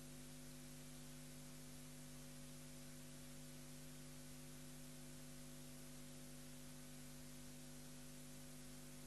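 Near silence: a faint, steady electrical hum of several fixed tones with a light hiss, the background noise of the broadcast audio line with no room sound on it.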